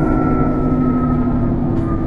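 Enviro 400 Trident double-decker bus under way, heard from inside the upper deck: a steady engine and drivetrain rumble with a whine whose pitch falls slowly.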